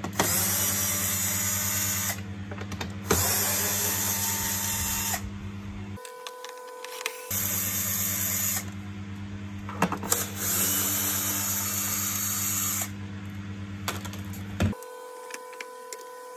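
Electric screwdriver running in several short bursts of a second or two each, backing out T20 Torx screws from a vacuum cleaner's plastic housing, with a few sharp clicks of plastic parts in between.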